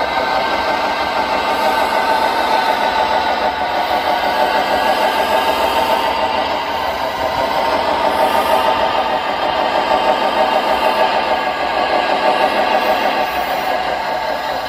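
Steady engine-like running of radio-controlled scale construction models, a wheel loader and tipper trucks, with a slight fast flutter.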